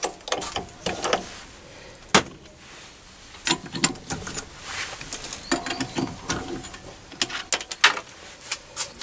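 Steel tools handled at a lathe's four-jaw chuck: irregular metallic clicks, clinks and clunks as the chuck key is fitted into the chuck and worked, with a denser run of clinks a little past halfway.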